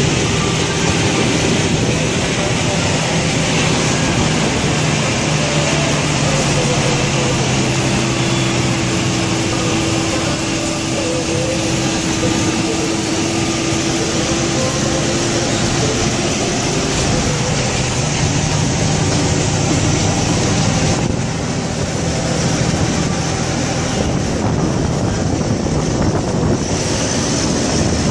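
Heavy diesel tractor-trailer engine running steadily, heard from the cab together with wind and road noise. The engine hum fades out a few seconds before the end.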